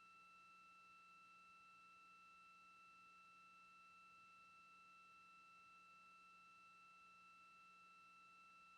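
Near silence: only a faint, steady electronic whine of a few unchanging high tones over a low hum.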